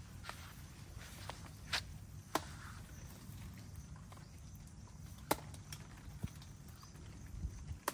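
Footsteps on grass and scattered sharp snaps and clicks, four louder ones spread through, over a low steady rumble: papayas being picked and handled under a papaya tree.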